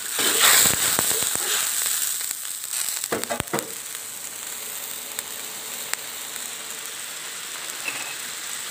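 Pan of curry broth with cauliflower and celery heating towards the boil, giving a steady bubbling sizzle. A louder burst of crackling comes in the first second, and a few sharp knocks follow about three seconds in.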